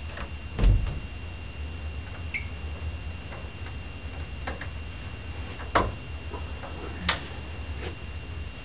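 Door handling and footsteps in a small room: scattered clicks and knocks, with a low thump about a second in and sharp clicks near six and seven seconds, over a steady low hum.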